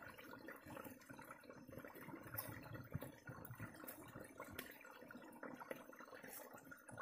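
Faint strokes of a long knife paring the peel off a small green fruit, with a few sharp ticks scattered among them.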